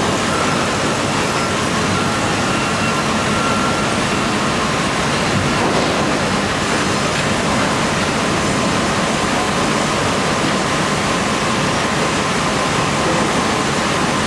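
Steady din of sawmill machinery running: the conveyors and saw line of a modern sawmill working timber, with a faint whine held for the first few seconds.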